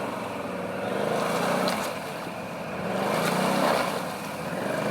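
An off-road vehicle's engine revving in two surges, about a second in and again past the middle, as the machine drives through the water crossing.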